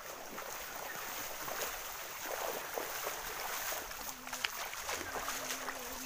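Footsteps splashing through a shallow stream, a run of irregular sloshing steps. Over the last two seconds a person's voice holds one low note.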